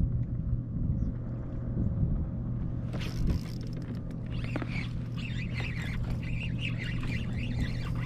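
Birds calling in a rapid flurry of high, wavering chirps that start about three seconds in. Under them run a steady low hum and wind on the open water.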